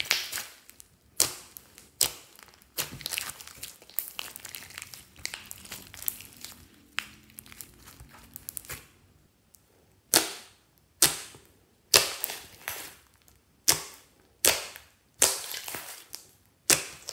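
Hands squeezing and pressing thick glossy slime, trapped air bursting with sharp pops and crackles; in the second half the pops come one at a time, about one a second.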